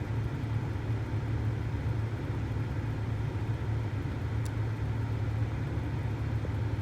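Toyota 4Runner's engine running steadily with a low, even hum.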